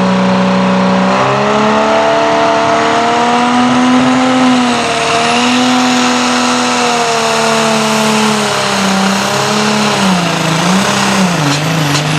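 A tractor-pulling competitor's engine running at full power during a pull against the weight sled, with a faint high whine above it. The revs rise about a second in, hold with small swings, then sag and waver near the end as the engine bogs down under the load.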